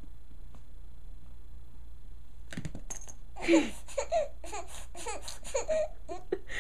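A plastic stacking ring falls off a baby's head with a short clatter about two and a half seconds in, then the baby laughs in a run of short bursts.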